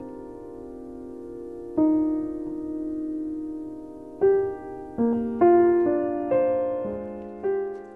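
Slow background piano music: single notes and soft chords struck a few seconds apart, then more often after about four seconds, each ringing out and fading.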